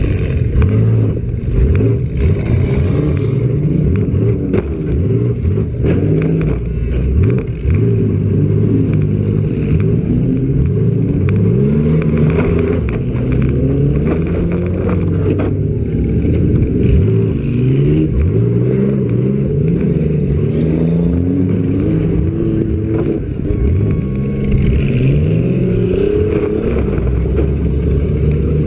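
Several demolition derby cars' engines revving up and down at once, with sharp bangs and clatter of car bodies colliding here and there.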